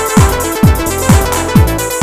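Electronic dance music built from eJay Dance 7 loops: a steady four-on-the-floor kick drum, about two beats a second, each kick dropping in pitch, under sustained synth chords.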